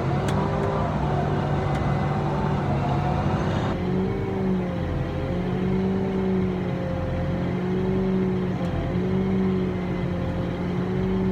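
Engine of harvest farm machinery running steadily, its hum wavering slightly in pitch. The tone changes abruptly about four seconds in.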